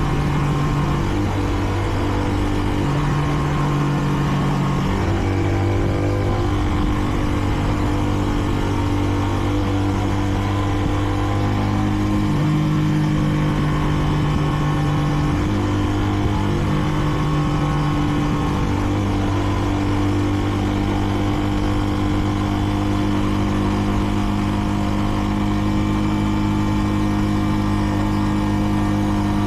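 Kreidler Dice CR 125's single-cylinder four-stroke engine running under way. Its pitch jumps up and down several times in the first two-thirds, then holds steady for the last third.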